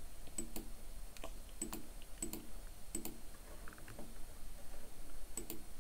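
Scattered clicks from a computer mouse and keyboard, a handful of short sharp clicks, several of them in quick pairs.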